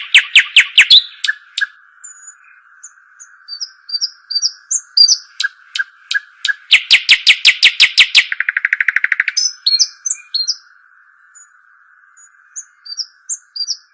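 Small songbirds (dakhal) calling: rapid loud trills of sharp chirps near the start and again from about the middle, the second one speeding into a buzzier rattle. Between and after them come scattered short high chirps, over a steady high-pitched hiss.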